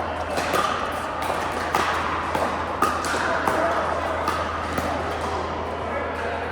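Pickleball paddles striking the plastic ball, sharp pops at irregular intervals, over a murmur of players' voices and a steady low hum.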